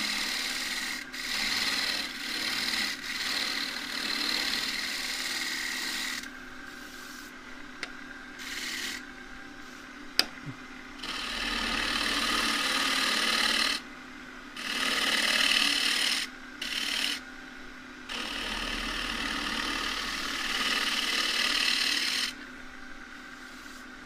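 Half-inch spindle gouge shear-scraping the base of a green casuarina bowl spinning on a wood lathe: a run of rasping cuts lasting a few seconds each, with pauses between where only the lathe's steady hum is left. A sharp click about ten seconds in.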